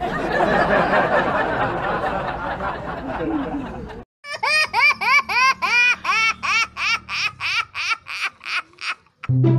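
Canned crowd laughter for about four seconds that cuts off abruptly. It is followed by a high-pitched giggle of rapid, evenly spaced laugh notes, about three or four a second, each rising and falling in pitch.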